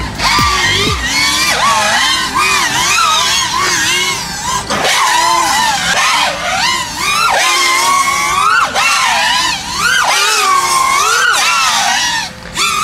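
FPV racing quadcopter's brushless motors and bent propellers whining in flight, the pitch constantly rising and falling with the throttle, with brief drops in level about five and ten seconds in.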